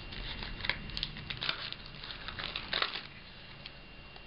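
Thin clear plastic protective film and its backing sheet crinkling and tearing as the invisibleSHIELD pieces are pulled out of their packaging: a run of irregular crackles that dies down about three seconds in.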